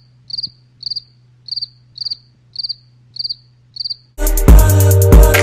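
A cricket chirping in a steady rhythm, about two short high trilled chirps a second, over a faint low hum. About four seconds in, loud music with a heavy drum beat cuts in over it.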